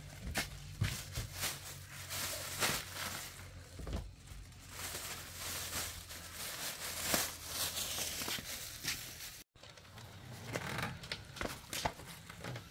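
Thin plastic bag crinkling and rustling as it is handled and shaken, in irregular crackles. A low steady hum sits underneath until about nine seconds in.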